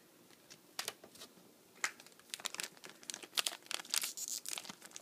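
Foil wrapper of a Cardfight!! Vanguard booster pack crinkling as it is handled and torn open: a few scattered crackles at first, then dense crinkling from about two seconds in.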